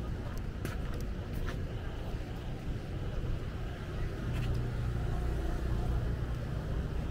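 Road traffic: vehicle engines running on a city street, a low steady engine hum that gets a little louder about four seconds in, with a few short clicks.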